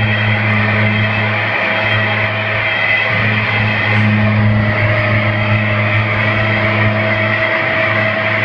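Harsh noise music played live: a loud, unbroken wall of distorted noise over a steady low drone, with a brighter hiss above that swells and eases slightly.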